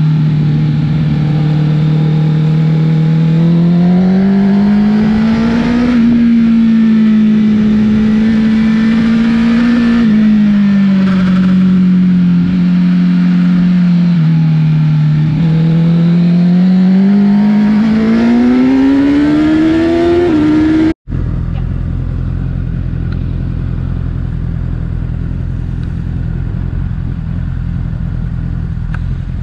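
Honda CBR1000's inline-four engine running under way, its note rising and falling several times as the revs go up and down. About two-thirds of the way through, the sound cuts off abruptly and is followed by a steady low rumble.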